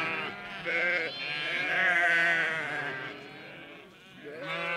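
A flock of sheep with lambs bleating: several overlapping, wavering bleats, the loudest and longest about two seconds in, with another starting near the end.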